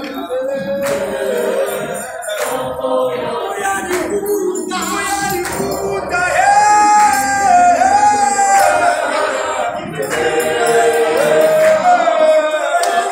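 Gospel choir singing in the clap-and-tap style, with a lead voice holding long notes over the group, loudest about halfway through. Sharp claps or taps mark the rhythm.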